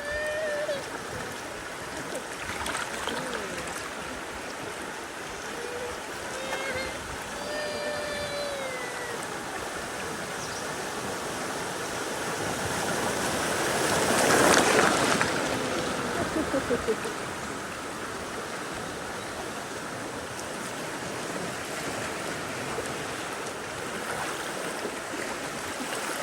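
River water rushing and splashing around a bamboo raft drifting downstream, swelling to a louder rush about halfway through.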